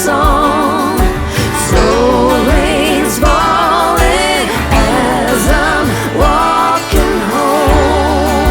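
Background pop song: a singer's voice, without clear words here, over a steady beat.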